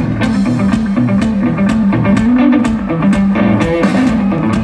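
Live blues-rock duo playing: an electric guitar riff with a full drum kit keeping a steady beat, heard loud through the stage PA from within an outdoor crowd.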